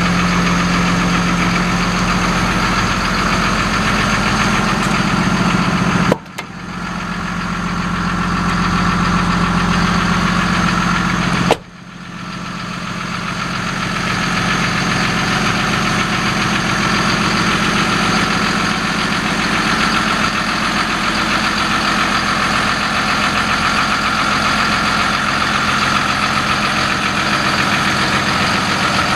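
Diesel engine of a Hino 258 tow truck idling steadily. Twice, a sharp click is followed by a brief drop in the sound, which comes back over a second or two.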